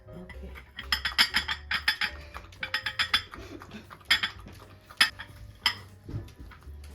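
Quick runs of sharp clinks and clatters against a dish, like a dog eating from a bowl. Faint background music runs underneath.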